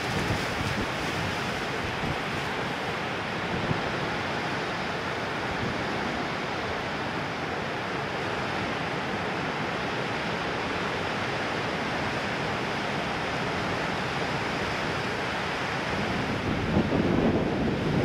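Ocean surf washing and breaking as a steady rush, with wind blowing across the microphone; it grows louder and rumbles near the end.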